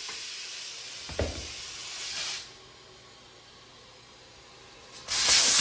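Compressed air hissing into a scooter tire as its bead is seated with a Cheetah bead blaster and the tire is filled. The hiss stops about two seconds in, with a short knock just before. A loud burst of air hiss comes near the end.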